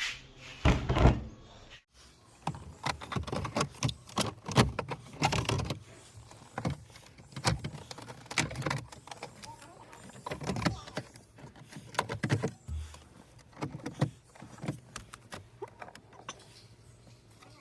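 Irregular clicks and knocks of hard parts being handled.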